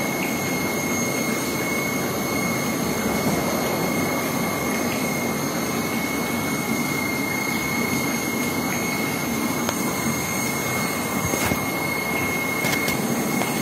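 Steady whirring rush of aquarium aeration, air pumps and bubbling air lines running without a break, with a thin constant high whine on top.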